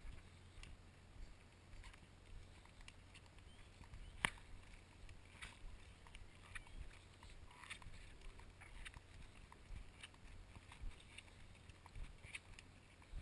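Faint footsteps and knocks on the wooden planks of a jetty, irregular and soft, with one sharper knock about four seconds in, over a low steady rumble.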